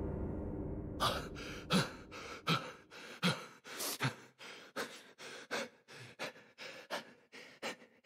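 A man panting hard, with heavy gasping breaths at roughly two to three a second: the breathing of someone collapsed from exhaustion after running on a treadmill. A steady hum stops about a second in, just before the gasping starts.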